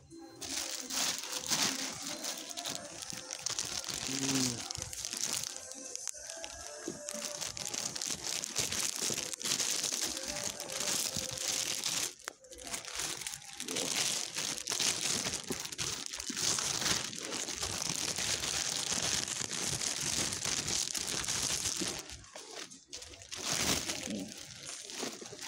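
Close crinkling and rustling handling noise, nearly continuous, with a brief break about twelve seconds in and a quieter stretch near the end.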